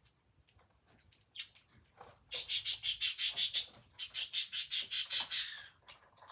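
Budgerigar calling in two rapid runs of high chirps, about seven a second, the first starting a little over two seconds in and the second just after four seconds, with a short break between.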